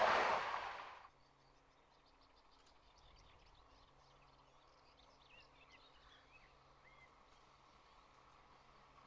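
A passing regional train's rumble fading away and cutting off about a second in. After that comes quiet countryside, with birds chirping now and then and a faint steady low hum.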